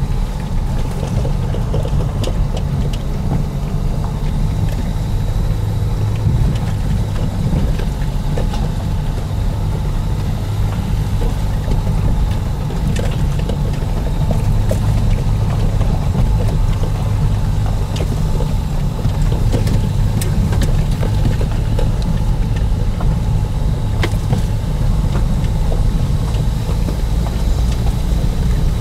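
A Dacia Duster driving over a rough dirt and gravel track, heard from inside the cabin: a steady low engine and road hum with scattered clicks and knocks.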